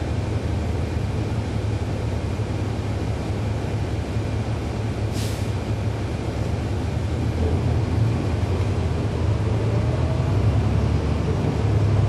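2011 NABI 40-SFW transit bus's Cummins ISL9 diesel engine heard from on board, running with a steady low rumble. There is a short hiss about five seconds in. Toward the end the engine grows a little louder with a faint rising whine.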